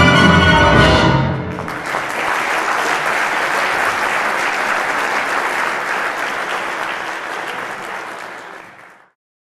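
A big band's final held chord, saxophones and brass over piano and drums, cuts off about a second in. The audience then applauds steadily, the applause fading out near the end.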